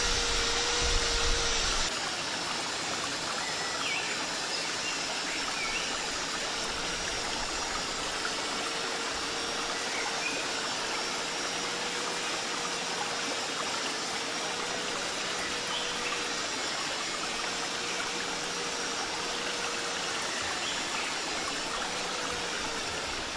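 Steady rushing background noise with a faint wavering hum and a few brief high chirps, and a louder low rumble during the first two seconds.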